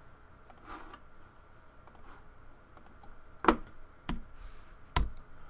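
A few sharp clicks from a computer mouse and keyboard. The loudest comes about three and a half seconds in, followed by two more within the next second and a half, with fainter ticks before them.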